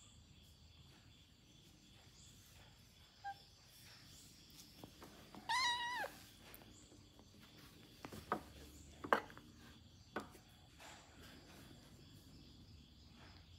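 Two cats play-fighting: one gives a single short, high meow about halfway through, followed by a few light knocks and scuffles.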